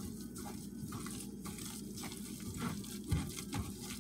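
Hands squeezing wet blended cabbage pulp in a strainer, with wet squishing and liquid running into the bowl below; a single dull knock about three seconds in.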